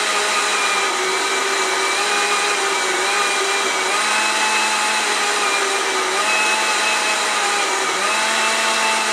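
Countertop blender running at speed, its motor whining steadily as it blends a thick shake, the pitch dipping and recovering slightly every couple of seconds.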